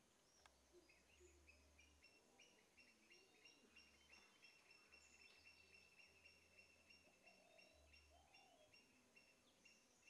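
Faint outdoor ambience with small birds chirping in quick, repeated high notes, and two short lower calls late on.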